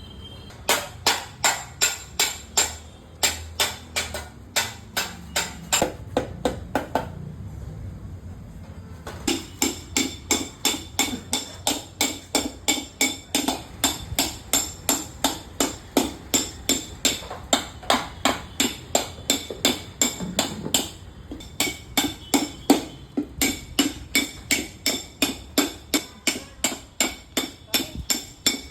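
Hammer striking metal in a steady rhythm of about three blows a second, each with a short metallic ring. The blows stop for about two seconds roughly a quarter of the way in, then carry on.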